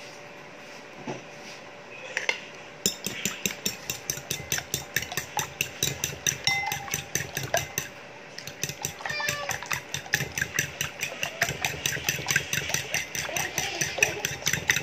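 A fork beating eggs in a bowl, clicking quickly and steadily against the side of the bowl, starting about three seconds in with a short pause about eight seconds in.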